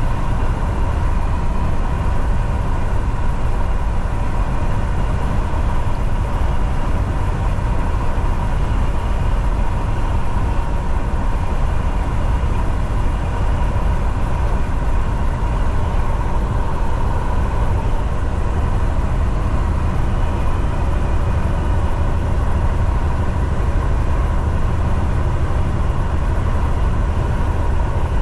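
Steady drone of a semi-truck heard from inside the cab while driving: low engine and road rumble with a faint steady whine above it.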